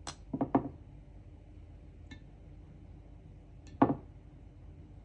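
A few light taps and clicks as plum quarters are picked out of a ceramic dish and set onto cake batter in a baking tray. There is a click and two quick knocks at the start, and one sharper knock later on.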